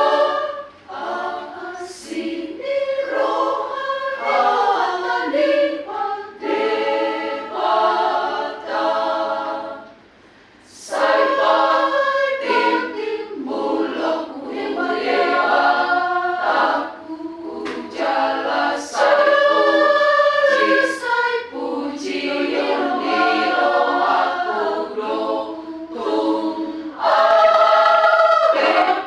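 A choir singing in several voices, breaking off briefly about ten seconds in and starting again.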